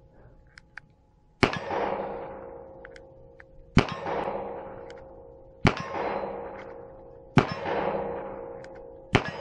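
Ruger GP100 .357 Magnum revolver fired five times, about two seconds apart, over a chronograph. Each shot is a sharp crack followed by a long metallic ringing tail that fades out before the next shot.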